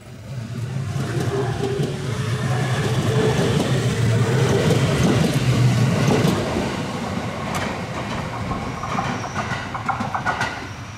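A JR 209-series electric commuter train passing close by with a steady low rumble. The rumble is loudest a few seconds in and eases as the last car goes past, with wheels clacking over rail joints near the end.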